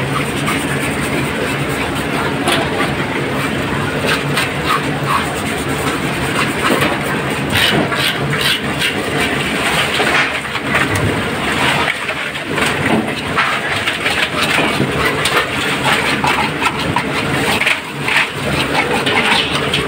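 An engine running steadily, with short clattering knocks throughout.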